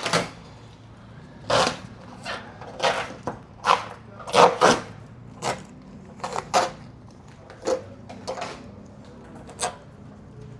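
Paint protection film being peeled off a car's front fender: a dozen or so short, irregular rips and crackles as the warm film's adhesive lets go.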